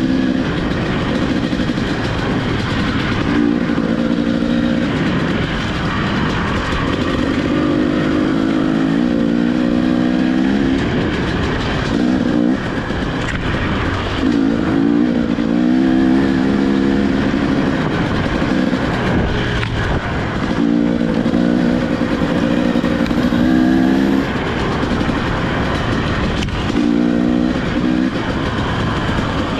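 Off-road dirt bike engine under way on a rough trail, revving in about seven throttle bursts that rise in pitch, with short let-offs between them. A steady rushing noise of wind and trail runs underneath.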